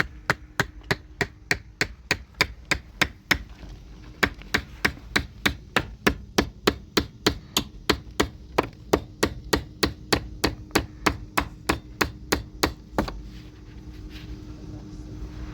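A tool striking at a fast, even rhythm, about four blows a second. There is a short break about four seconds in, and the blows stop about thirteen seconds in.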